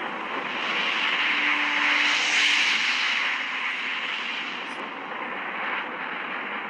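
A whooshing rush of noise, a sound effect for the animated planets, that swells to a peak about two and a half seconds in and then slowly fades.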